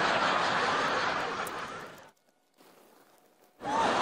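A person's loud breathy exhale, like a long sigh or gasp, lasting about two seconds and fading out. After a short pause a second strong breath starts near the end.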